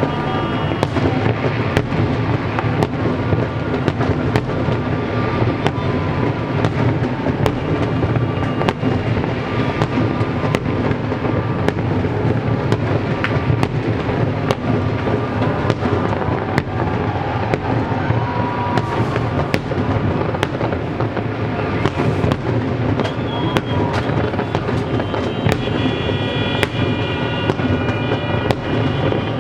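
Fireworks display: a dense run of sharp bangs and cracks over a continuous low rumble from the barrage, with music playing underneath.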